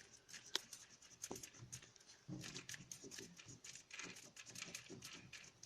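Clutch cable lever being screwed by hand onto the threaded end of a clutch release cable: faint, scattered clicks and light scraping, with two sharp ticks in the first second and a half.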